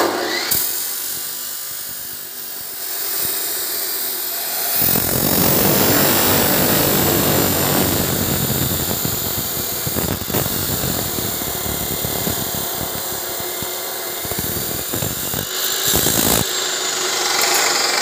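Bosch abrasive chop saw cutting steel rebar: the motor starts up suddenly, and about five seconds in the abrasive wheel grinds through a bundle of reinforcing bars for roughly ten seconds. Near the end the cut finishes and the wheel spins free again.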